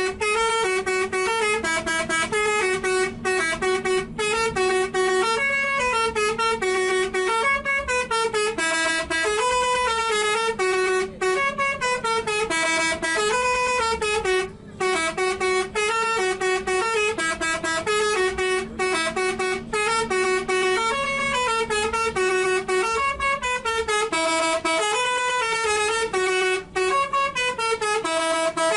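Basuri telolet bus horn, a set of electric air horns, playing a tune: a melody of stepping horn notes that runs on phrase after phrase, with only brief breaks.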